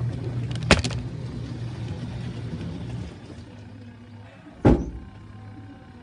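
Spin tub of a Sharp 6.5 kg twin-tub washing machine spinning fast with a steady low motor hum that fades about halfway through. Two sharp knocks, one about a second in and a louder one near the end.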